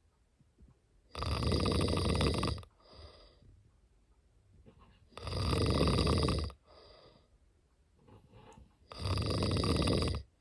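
Domestic cat snoring in its sleep: three loud snores, each about a second and a half long and about four seconds apart, each followed by a softer breath.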